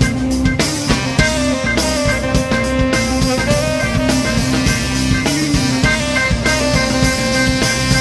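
Funky instrumental music: a drum kit keeps a steady, busy beat under guitar and other sustained pitched parts, playing without a break.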